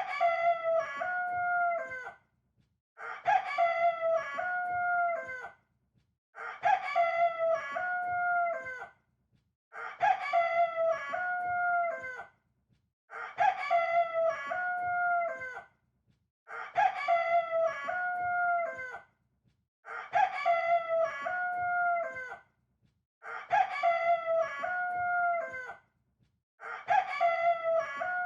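Rooster crowing, nine identical crows of about two seconds each, one every three seconds or so, with silence between: the same crow repeated.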